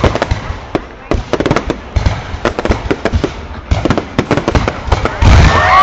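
Fireworks going off in rapid crackling pops and bangs. Near the end a sudden, louder rush starts, with a whistling tone that bends in pitch.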